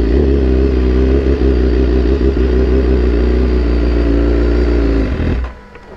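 BMW S1000RR inline-four engine running at a steady idle, then switched off about five and a half seconds in.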